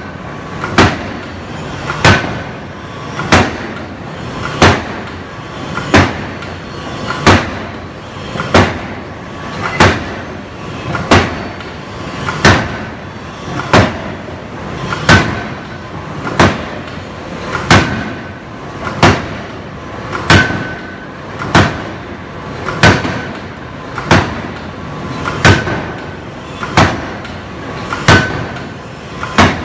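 Hydraulic open-die forging hammer, driven by nitrogen compressed with hydraulic oil, striking a hot flange in a steady rhythm. Heavy blows land about every 1.3 seconds, each with a short metallic ring.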